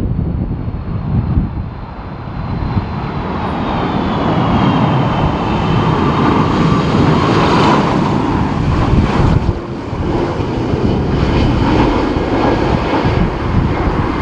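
Jet airliner's turbofan engines passing close on a landing approach, getting louder after about two seconds, with a whine that falls in pitch. Gusty wind rumbles on the microphone underneath.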